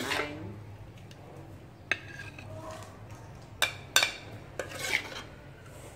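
Metal spatula scraping and clanking in a steel wok as stir-fried cauliflower and chicken organs are scooped onto a ceramic plate. There are sharp clinks about two seconds in and twice around three and a half to four seconds, and another scrape near the end.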